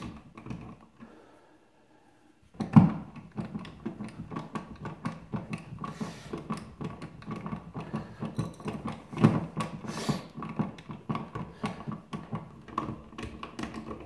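Light switch being screwed into its wall box with a hand screwdriver. After a short pause comes a long run of quick small clicks and scrapes from the mounting screw and the metal yoke, with a few louder knocks.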